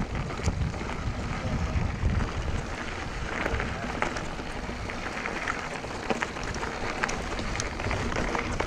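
Mountain bike riding over a dirt trail: tyres rolling on dirt with many small clicks and rattles from the bike, and wind rumbling on the action camera's microphone.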